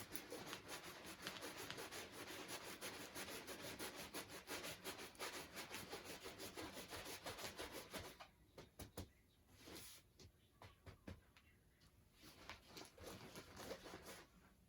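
Diamond painting canvas being rolled up by hand: quick rubbing and rustling for about eight seconds, then fainter scattered rustles and clicks.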